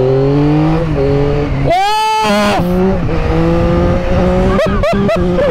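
Yamaha XSR900's inline three-cylinder engine accelerating through the gears, its pitch climbing steadily and dropping back at each upshift. A brief, loud, high-pitched sound rises and falls about two seconds in.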